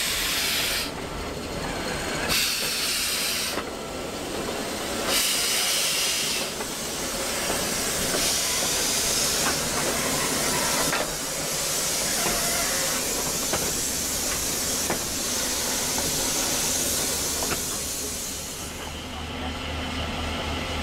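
Steam hissing from the J class steam locomotive J549 as it moves slowly, in separate bursts at first and then steadily. Near the end the hiss gives way to a low steady hum.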